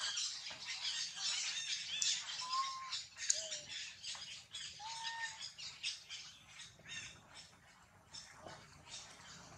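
Rapid high-pitched squeaking and chirping animal calls with a few short whistled notes, quieter and sparser near the end.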